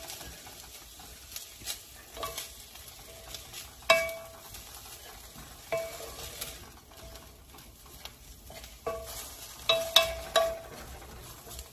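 A wooden spatula stirring diced cooked chicken in an amber glass pot, the meat frying with a faint sizzle in a little oil. The spatula knocks against the glass every second or two, and some knocks leave a brief ringing tone.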